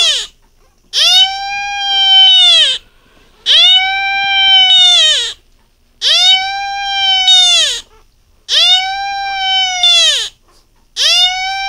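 Beagle howling: a series of long, high, drawn-out howls, each about two seconds, rising at the start and sliding down at the end, coming about every two and a half seconds.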